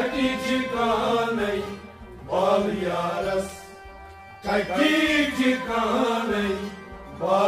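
Male voice singing a Kashmiri Sufi kalam in phrases of about two seconds, over a steady harmonium drone with plucked string accompaniment.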